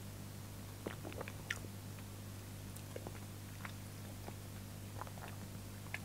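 Faint lip smacks and small mouth clicks from a man tasting a mouthful of ale, over a steady low hum.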